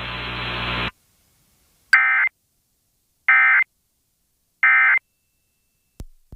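Emergency Alert System End-of-Message tones: three short, identical bursts of warbling digital data about a second apart, signalling that the alert is over. They follow a second of steady line hum from the alert feed, which cuts off.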